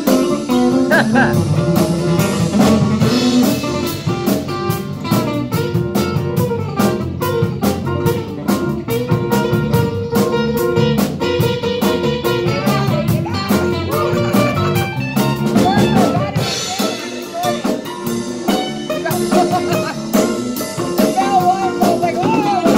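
Live band playing: acoustic and electric guitars over a drum kit keeping a steady beat.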